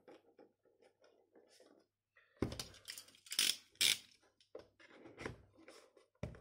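Cardboard toy box being handled and cut open with a hobby knife: a quick run of sharp scrapes and clicks from about two and a half to four seconds in, with a few lighter knocks and rustles after.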